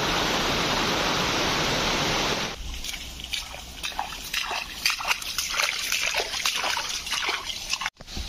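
Steady rush of river water, which cuts off after about two and a half seconds. Then footsteps swishing and crunching through tall grass, as irregular rustles and crackles.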